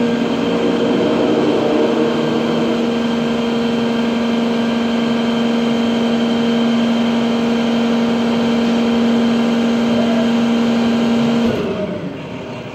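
International garbage truck running with a loud, steady droning hum, which winds down with a slight drop in pitch about eleven and a half seconds in.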